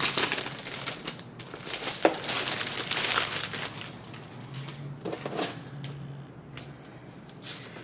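Paper and plastic packaging rustling and crinkling as it is handled and opened, louder in the first few seconds, then quieter with a few light taps.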